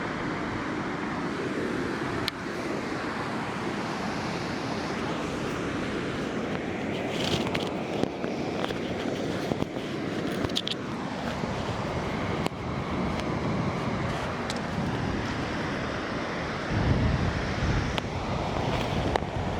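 Pacific Ocean surf washing on a sandy beach, a steady rush of waves. A few faint clicks come through, and a low rumble swells near the end.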